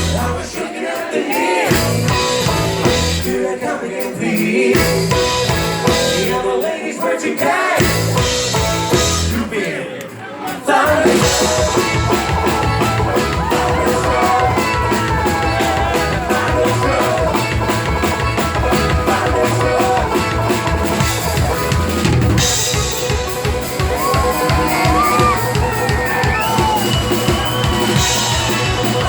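Live band playing a bluegrass-style rock cover, with banjo and a drum kit among the instruments. For the first ten seconds or so the band plays in stop-start bursts with short breaks, then the full band plays on steadily at a quick pulse.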